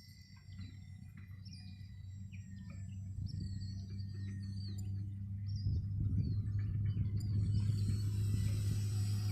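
Small birds chirping, with a steady low hum that grows gradually louder through the clip.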